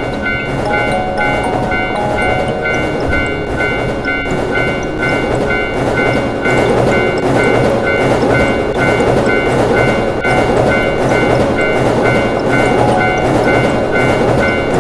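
Railroad crossing alarm ringing at a steady repeating beat while a train runs over the rails, the train rumble and clatter growing louder from about six seconds in, over a light background melody.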